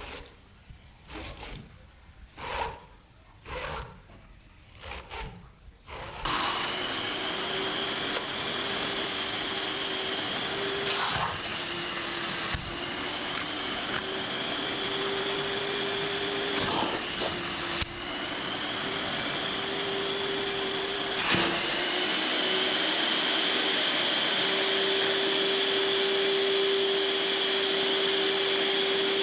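About six scrubbing strokes on a rug, roughly one a second. Then a motor-driven cleaning machine starts, likely a wet vacuum or water extractor: a steady drone with a constant whine that breaks off abruptly several times and picks up again.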